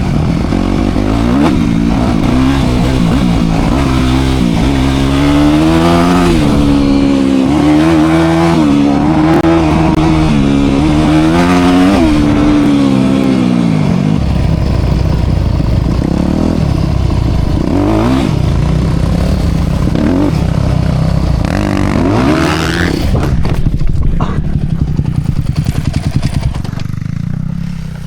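Dirt bike engine running under way, its pitch climbing and dropping again and again as the rider revs up and eases off. In the last few seconds the sound turns choppy and uneven.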